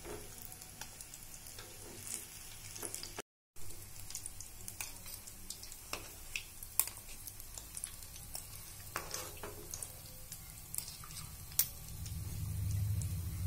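Hot oil sizzling with scattered crackles as oat-coated banana balls deep-fry. The sound cuts out briefly about three seconds in, and a low hum swells near the end.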